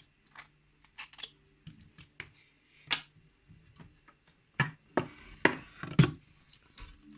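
Scattered sharp clicks and taps of a pin-tumbler challenge lock and its key being handled, the lock being locked back up after picking; about seven clicks, the loudest ones close together a little past the middle.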